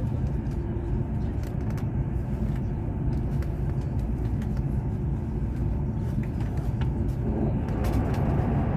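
Steady low rumble of a CR400BF-Z Fuxing high-speed train running at speed, heard inside the passenger car, with a few faint clicks. The noise grows louder and brighter near the end.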